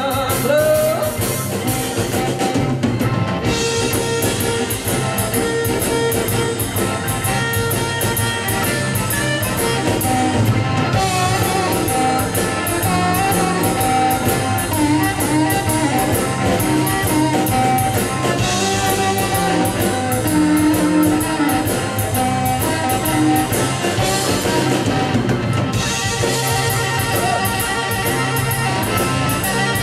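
Live blues band playing an instrumental passage with no vocals: drum kit, bass and electric guitars keep a steady groove under a sustained, bending lead line.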